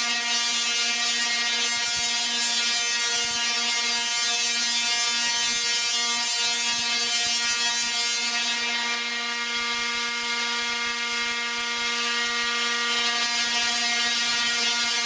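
Zeusaphone ZX-160 singing Tesla coil discharging, its arcs buzzing as one steady tone with a crackle over it. The crackle eases a little after about eight seconds, while the pitch stays the same.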